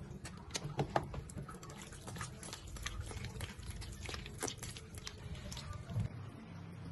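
Hands scrubbing raw shrimp with coarse salt in a china plate: irregular small clicks and rubbing as the salt grains and shrimp are worked against the plate.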